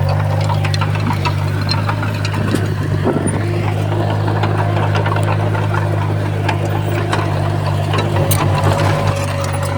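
Diesel engine of a Komatsu D31P crawler bulldozer running steadily under work, with scattered sharp clicks and clanks over the low hum.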